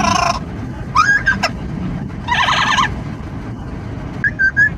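Amazon parrot squawking and calling in a series of loud, pitch-bending calls, about four in a few seconds, over the steady low rumble of car road and wind noise.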